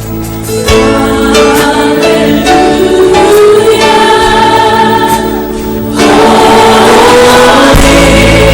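Choral Christian music: a choir singing held notes with instrumental backing, growing fuller and louder about six seconds in.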